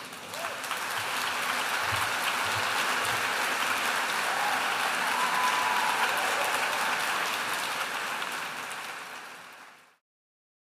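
Audience applauding, swelling in the first second, holding steady, then fading away near the end.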